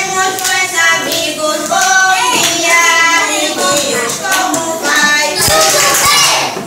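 A class of young children singing a greeting song together in Portuguese, with hand claps along.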